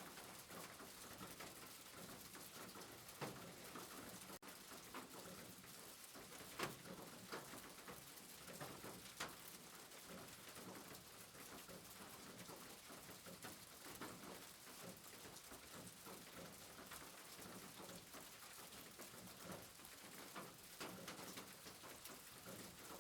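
Faint, steady rain patter, with a few sharper ticks of single drops standing out now and then.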